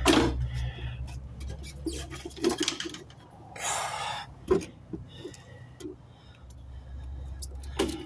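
Plastic fuel pump module knocking and scraping against the fuel tank opening as it is lifted out by hand, with scattered clicks and a short rustling rush about three and a half seconds in. A steady low hum runs underneath.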